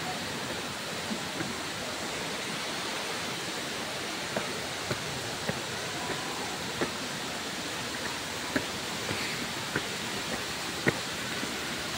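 Steady rushing water, with scattered footfalls on stone steps on top of it, a few sharper ones near the end.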